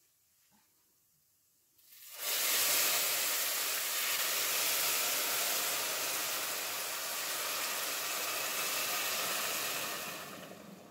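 Cold water hitting pearl barley freshly toasted in hot oil in a stainless pot: a loud sizzling hiss of steam starts suddenly about two seconds in and dies away near the end.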